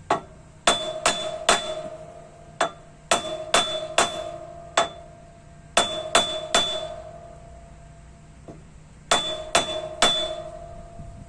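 Large Craftsman flathead screwdriver being used as a hammer, struck hard against the steel of a trailer. About a dozen sharp blows come mostly in quick groups of three, and each leaves a brief metallic ring.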